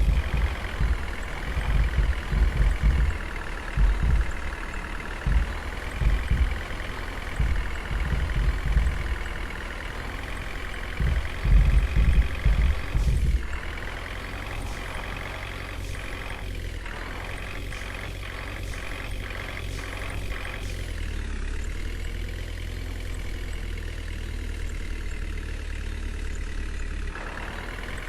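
Diesel engine of a JCB 3DX backhoe loader running, with heavy, uneven low rumbling pulses through the first half. It then settles into a steadier drone, with a run of quick ticks partway through.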